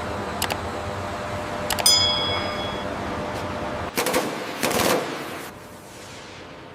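Metal being worked on a seized, corroded fitting. Sharp metallic taps come first, one of them ringing on about two seconds in, then a rapid burst of impacts about four seconds in, over a steady hum.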